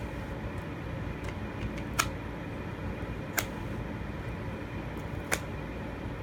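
A knife working at stiff product packaging, giving about four sharp clicks or snaps a second or two apart over a steady low hum; the knife is dull and the packaging hard to cut.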